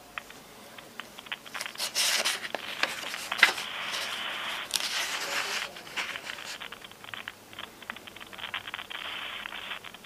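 Scraping, rustling and crackling noise with many sharp clicks on a telephone-call recording. The noise is louder and fuller from about one and a half seconds in until about six and a half seconds.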